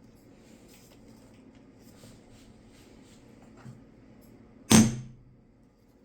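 Quiet handling and rustling sounds, then a single sharp knock about three-quarters of the way in, with a short low ring after it, from a part or tool being worked on the bench during the blower motor repair. A fainter knock comes just before it.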